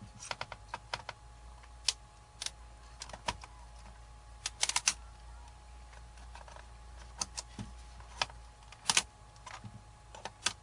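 Irregular sharp plastic clicks and snaps as the laptop keyboard is pried and worked loose from the Dell Latitude E4310's case. There is a quick cluster of clicks about halfway through and another near the end.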